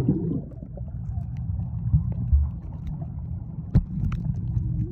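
Muffled underwater sound of a wave pool, heard through a phone microphone held under the surface: a steady low rumble of moving water, with the higher sounds of the pool hall cut off and a sharp click about four seconds in.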